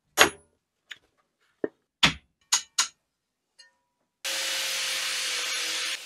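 Hammer blows on a steel punch set against an old hand saw's handle: about six sharp strikes in the first three seconds. About four seconds in, an electric power tool starts and runs steadily for nearly two seconds, grinding metal.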